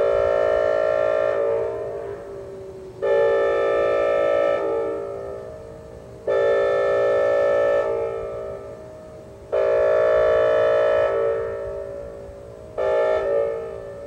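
Whelen WPS 2810 electronic siren sounding a steady 435 Hz tone. The tone comes in a loud swell about every three seconds and fades between swells. The recordist finds it far too quiet for this siren and suspects it is running on about half power.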